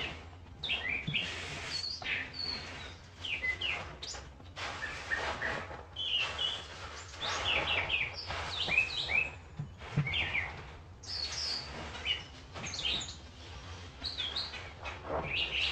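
Many small birds chirping and tweeting loudly in quick, overlapping calls, over repeated bursts of splashing, gushing water as a soapy sponge is squeezed and rinsed.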